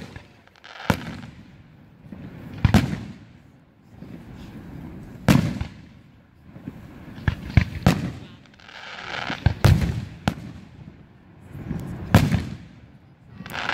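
Aerial firework shells bursting overhead in a series of sharp booms, about one every two seconds with a quick cluster of several near the middle. Each boom trails off in a rolling echo.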